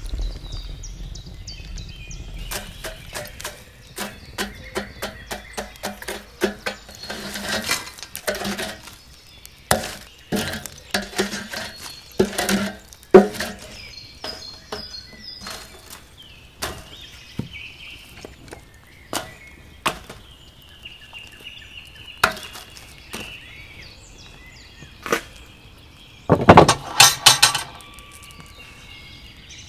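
Charred wood embers being scooped from a fire bowl and dropped into a cast iron grill: irregular clinks and clattering knocks of the brittle coals, in busy spells with quieter gaps between. Birds chirp in the quieter stretch.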